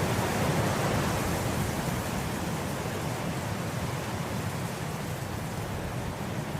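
Wind blowing through grass: a steady rushing, a little stronger in the first couple of seconds, then easing slightly.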